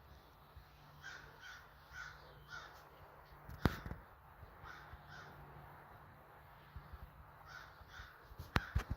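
Short bird calls repeated in small groups of two or three, over a low steady hum. There is a sharp knock about midway and a few clicks near the end.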